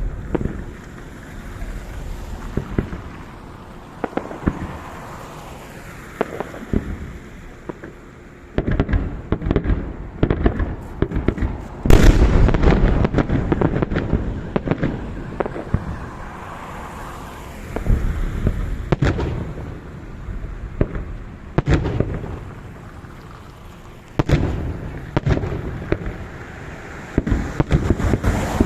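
Fireworks salute: shells bursting with loud bangs in clusters, the heaviest volley about twelve seconds in, with crackling and rumbling echoes between the bursts.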